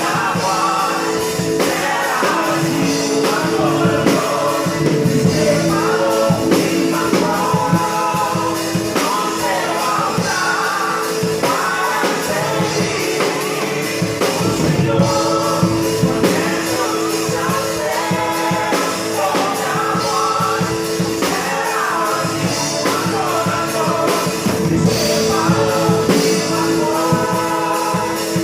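A live band playing a song with voices singing over steady held chords and drums. The drum kit is played unmiked, its snare a Mapex Maple 14x8, heard in the room sound.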